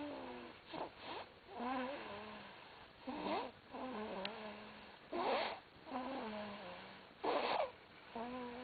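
A sleeper snoring in a steady rhythm, about one breath every two seconds. Each breath brings a short rasping snore, then a wavering, whistly tone that drops in pitch as it fades.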